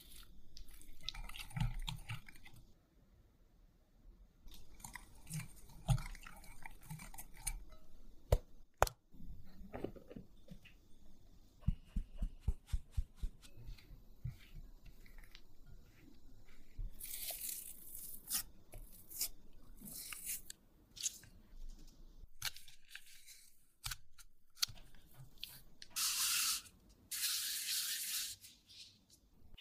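A silicone spatula stirs and scrapes softened butter and powdered sugar in a glass bowl, then folds in flour. In the middle comes a run of sharp taps against the bowl.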